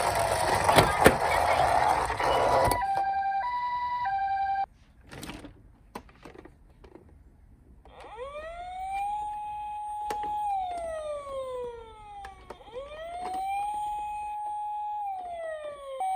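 A loud noisy rush with a few sharp clicks cuts off suddenly about three seconds in. It gives way to a Japanese-style two-tone ambulance siren from toy emergency vehicles, alternating high and low. After a short lull, an electronic wailing siren rises, holds and falls twice.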